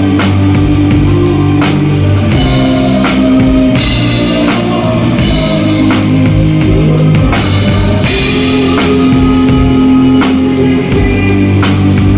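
Drum kit with a DW Collector's snare and Zildjian K cymbals played along to a band backing track: steady kick and snare strokes over sustained bass and guitar, with cymbal crashes about four seconds in and again near eight seconds.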